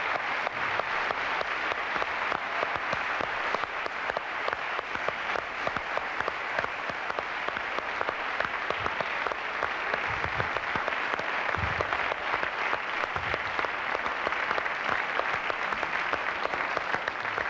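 Studio audience applauding, a long, even round of clapping that keeps going without a break.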